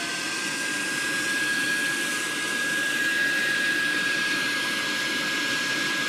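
Power venter blower running at full speed on its variac, a steady rush of air with a high whine that climbs slightly at the start and then holds steady.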